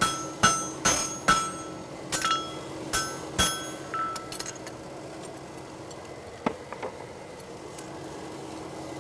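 Hammer blows ringing on a hot draft horseshoe on the anvil as it is flattened: quick strikes about two a second, then slower, lighter blows up to about four and a half seconds in and a couple of light taps near seven seconds. A low steady hum runs underneath.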